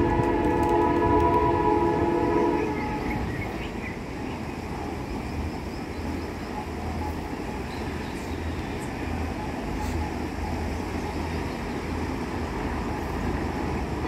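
WDP4 diesel locomotive's horn sounding a steady multi-note chord for about two and a half seconds, then cutting off. After that, the low drone of the approaching locomotive, growing slightly louder.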